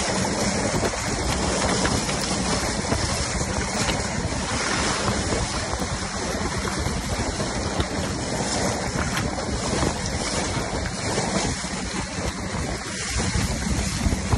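Water rushing and splashing along the hull of a motor yacht running at speed, with wind buffeting the microphone and a faint steady low hum underneath.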